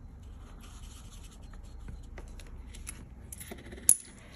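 Marker tip scratching and rubbing on paper as small circles on a savings-challenge sheet are coloured in, with light clicks. About four seconds in there is one sharp, bright clink, a euro coin being moved on the page.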